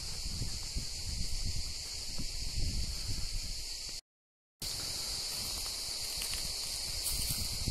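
A steady, high-pitched insect chorus with low wind rumble on the microphone. The sound cuts out completely for about half a second in the middle, then the chorus carries on.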